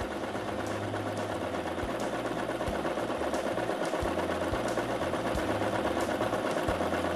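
Brother LS1217 sewing machine running steadily, sewing a narrow zigzag stitch down one side of a buttonhole.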